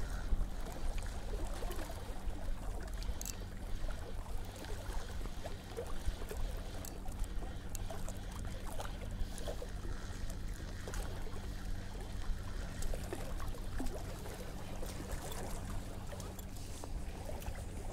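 Small waves lapping and trickling against a rocky shoreline, over a steady low rumble, with a few faint scattered clicks.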